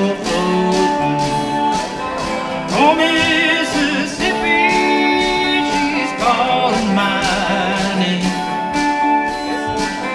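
Live band music with guitar, playing the instrumental part of a country-rock song, with a wavering melody line over it.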